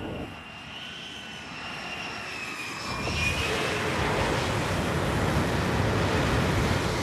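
Jet aircraft engine: a high whine, then a louder rushing noise that builds from about three seconds in.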